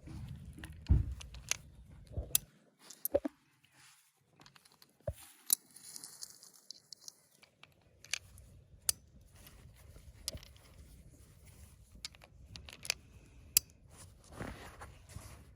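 Scattered sharp metallic clicks and light scraping from firearms being handled, with no shots fired.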